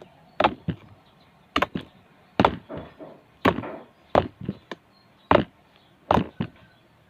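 Thick homemade slime being pressed and slapped by hand, giving about a dozen sharp, wet pops and clicks at an uneven pace.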